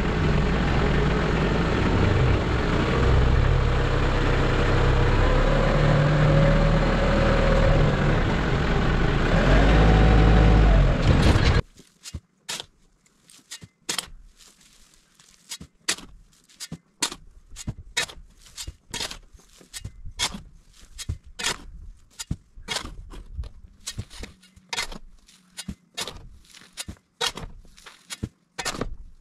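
Compact tractor engine running steadily, cutting off suddenly about twelve seconds in. Then a steel shovel scrapes sand out of a front-loader bucket and throws it into a trench, with sharp scrapes coming one to two a second.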